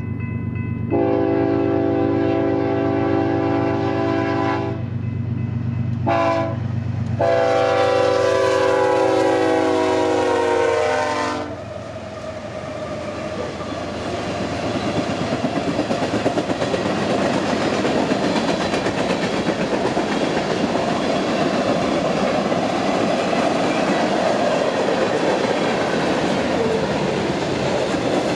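Locomotive air horn sounding the grade-crossing signal: a long blast, a short one, then a long blast that drops in pitch as the locomotive passes, over a low engine rumble. Then the train rolls by with a steady rhythmic clatter of wheels over rail joints.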